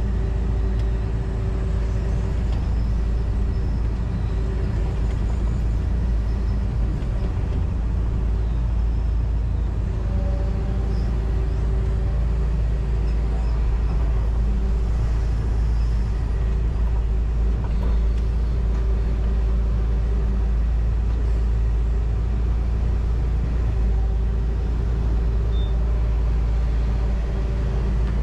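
John Deere 245G excavator's diesel engine running steadily under work, heard from inside the cab, with a whining note that shifts in pitch about ten seconds in.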